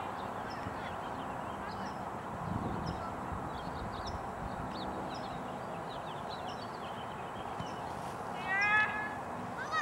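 Outdoor ambience at a youth soccer game: a steady background haze with faint, scattered short calls. About eight and a half seconds in comes one loud, high-pitched shout with a wavering pitch.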